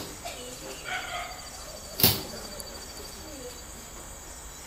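A single sharp knock or bump about two seconds in, standing out over faint, indistinct background sounds.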